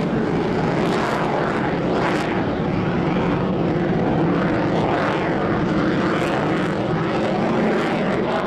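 Chengdu J-10 fighter's single turbofan jet engine in flight: a loud, steady jet noise, rough and crackling, as the aircraft rolls and turns.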